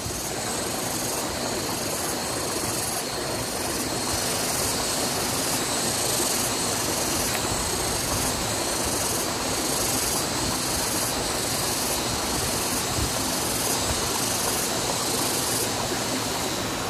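Steady rush of flowing river water, an even hiss that holds unchanged throughout.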